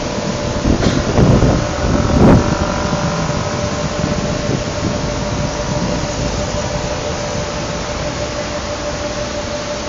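Steady rush of highway traffic with a steady hum through it, and wind buffeting the microphone in two louder gusts about one and two seconds in.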